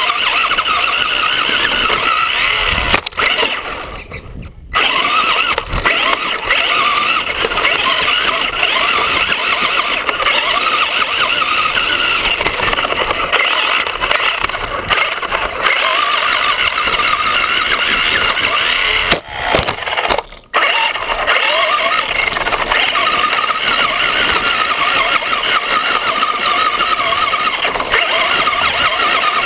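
Traxxas RC car's motor and drivetrain whining as it drives, the pitch wavering up and down with the throttle, heard from a camera mounted on the car. The sound drops away briefly twice, around four seconds and around twenty seconds in.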